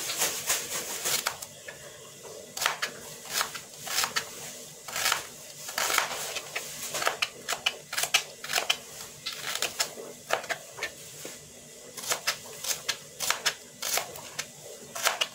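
Kitchen knife slicing shallots thinly on a plastic cutting board: a run of sharp taps as the blade meets the board, uneven at about two a second with short pauses.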